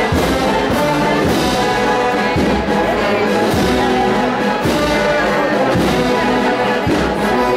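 Brass band playing a slow processional march: held brass chords over a low drum beat about once a second.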